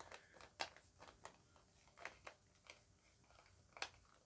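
Faint, scattered sharp clicks and taps of a plastic salt and pepper mill being handled and its parts worked, with the strongest click near the end.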